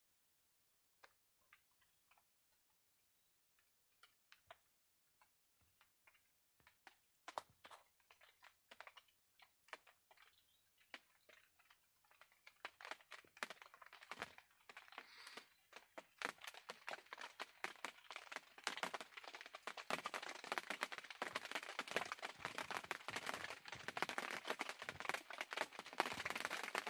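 Dry crackling and rustling: scattered sharp clicks at first, thickening about halfway through into a dense, continuous crackle.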